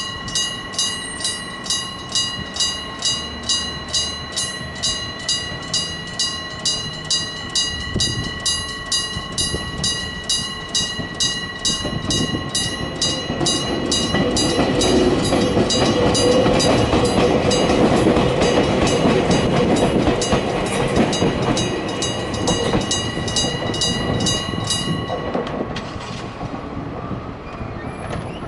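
Electric-bell level-crossing warning bell ringing in a fast, even run of strokes, then stopping near the end. Partway through, a train passes over the crossing: its running noise and wheel clatter swell to a peak and fade as the bell falls silent.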